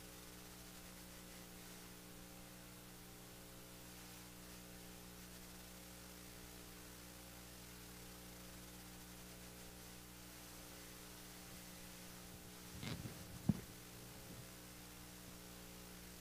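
Steady electrical mains hum over a faint hiss. About thirteen seconds in, a brief faint sound ends in a sharp click.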